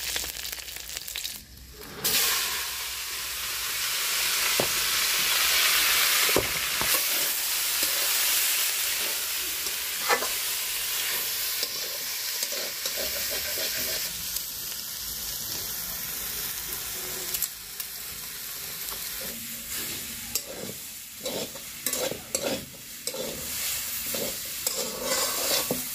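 Boiled taro chunks sizzling in hot mustard oil in a steel kadhai. The sizzle jumps up suddenly about two seconds in and slowly eases off, while a metal spatula stirs and scrapes the pieces, its clacks on the pan growing more frequent toward the end.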